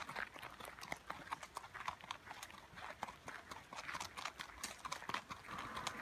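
Horse's hooves clip-clopping on a gravel track in an irregular run of sharp hoofbeats.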